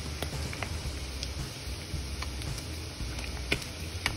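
Shredded dried squid deep-frying in hot oil: a steady sizzle with scattered sharp crackles and pops, the loudest about three and a half seconds in, over a low steady hum.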